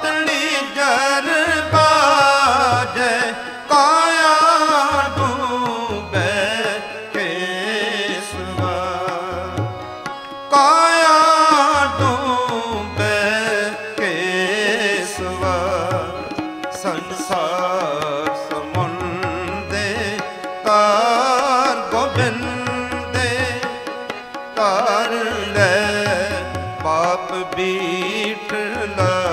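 Sikh Gurbani kirtan. A man's voice sings long, wavering melodic phrases with no clear words, over held harmonium notes and a steady tabla rhythm.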